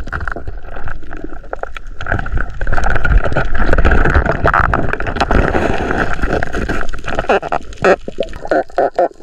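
Water gurgling and sloshing around a swimming diver, a dense rushing noise scattered with small clicks.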